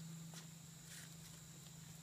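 Faint scattered taps and scuffs of a small dog's claws and paws on asphalt as it pounces around, over a steady low hum.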